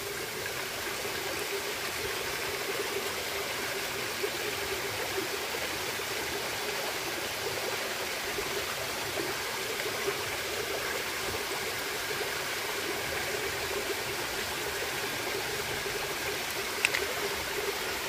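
Steady rush of a waterfall and its creek, an even noise of falling water with no breaks. A sharp click sounds once near the end.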